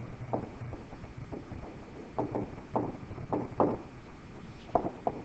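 A stylus writing on a screen: a string of light, irregular taps and short scrapes as words are handwritten, over a faint steady low hum.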